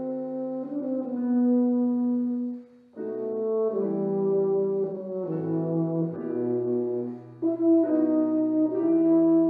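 A brass instrument playing a slow melody of long, held notes that move from one pitch to the next, with a short break for breath about three seconds in.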